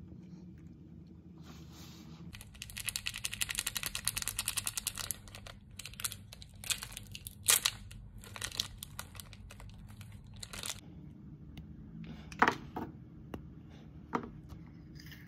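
Plastic snack wrapper being crinkled and torn open: a dense run of rapid crackling for about three seconds, then scattered crinkles and clicks as the packet is handled.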